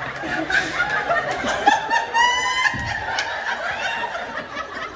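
An audience laughing and chuckling, with several voices overlapping.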